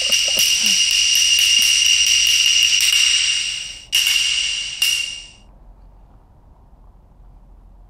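A small bell jingling, with rapid strikes on one high ringing tone. Two last strikes come near the end, and the ringing then dies away.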